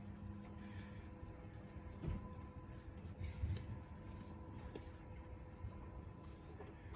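Faint rubbing of an alcohol cleaning pad wiping plastic dashboard trim, with a couple of soft bumps a little after two seconds and again midway.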